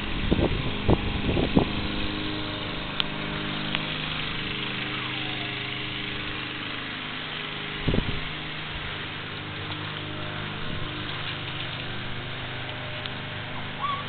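Steady mechanical hum of several low tones, like a motor running nearby, with a few knocks in the first two seconds and another about eight seconds in.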